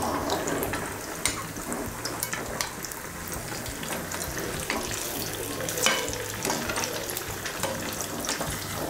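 Purnam burelu (sweet balls dipped in urad dal and rice batter) deep-frying in hot oil in an iron kadai: a steady bubbling sizzle full of small crackles. A few sharper clicks stand out, the loudest about six seconds in.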